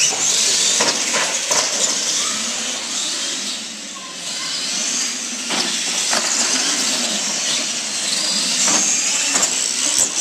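Radio-controlled monster trucks racing on a hard indoor track: a high-pitched motor and tyre hiss that swells and fades as the trucks pass, with several sharp knocks from the trucks hitting the course or landing.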